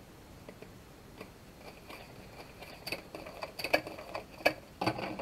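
Small hard clicks and taps of a laptop RAM module being handled against the open laptop, sparse at first and then coming thick and fast in the second half, with a few sharp louder clicks and a dense rattle of clicks at the end.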